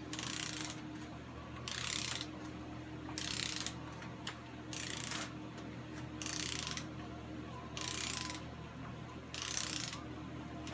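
Ratcheting torque wrench tightening intake manifold bolts to torque: about seven short ratchet strokes, roughly one every second and a half.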